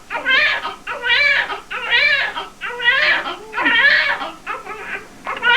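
Newborn baby crying in the first minutes after birth: short wails about one a second, each rising then falling in pitch.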